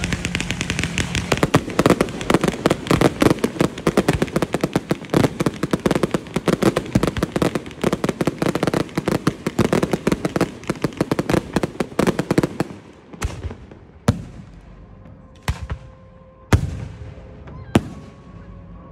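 Fireworks display: a dense barrage of rapid crackling bangs that thins out about two-thirds of the way through into five single, separate shell bursts about a second apart.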